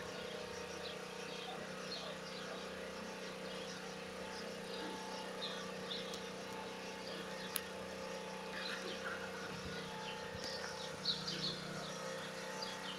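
Background ambience: a steady low hum with many short, high chirps scattered through it, and a single sharp click about seven and a half seconds in.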